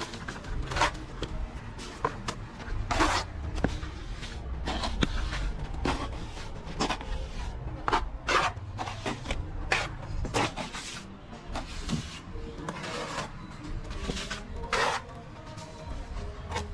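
Plastering trowel scraping and smoothing mortar on a wall in short, irregular strokes, with a low rumble underneath.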